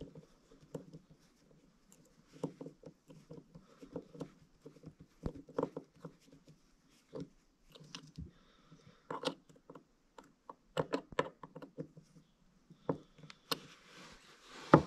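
Small screwdriver working a tiny screw into a metal diaphragm carburetor, with irregular light clicks, taps and scrapes of the tool and small parts against the carburetor body.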